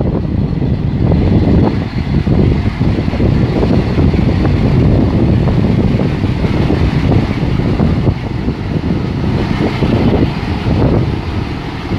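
Diesel passenger locomotive approaching slowly at the head of its coaches, its engine running with a steady low rumble. Wind noise on the microphone is mixed in.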